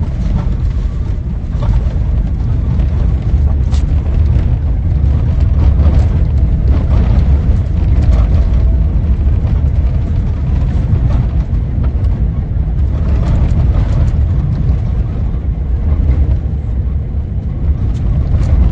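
Steady low road rumble inside a Tesla Cybertruck's cabin as it drives a dirt trail, with no engine note since the truck is electric. Scattered short ticks and knocks from gravel and bumps.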